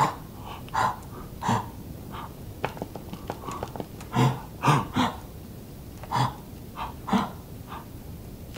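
Men stifling laughter: short breathy bursts of held-back laughing, a few spaced about half a second to a second apart, with a couple of faint clicks in between.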